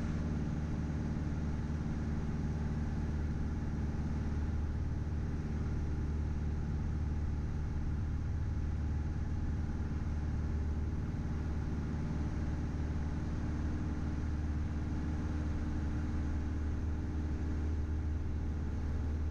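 Engine and propeller of a Piper PA-28-161 Warrior, a four-cylinder Lycoming, running steadily in level flight. It is heard as a constant low drone from inside the cabin.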